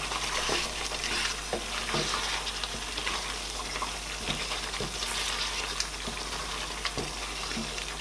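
Wooden spoon stirring thick egusi soup in a pot, with scattered soft knocks against the pot, over a steady hiss from the simmering soup.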